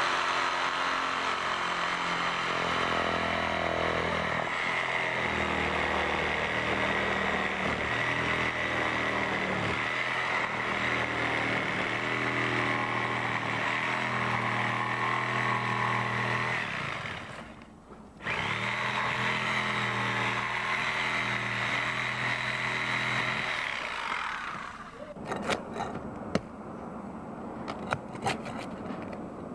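Corded reciprocating saw cutting a vent hole through asphalt roof shingles and sheathing, its motor pitch shifting up and down as the cut goes. It breaks off briefly partway through, runs again, then stops, followed by a few scattered knocks and taps.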